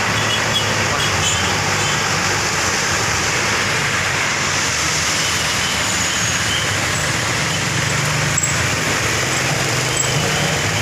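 Intercity bus engines and road traffic noise, a steady heavy hum as buses in a convoy drive past.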